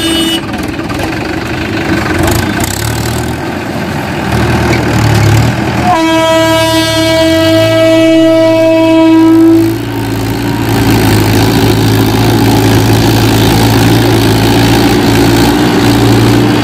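Train horn sounding one long blast of about three and a half seconds, about six seconds in, over the steady running of a Mahindra Yuvo tractor's diesel engine.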